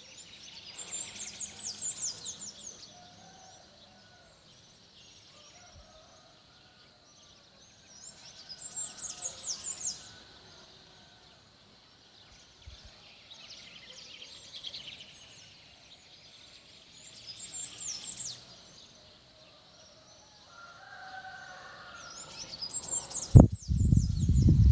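A songbird sings short, high, fast sweeping phrases, repeated every seven or eight seconds, over a steady high-pitched hum. Near the end comes a sudden low thump and rumble, the loudest sound.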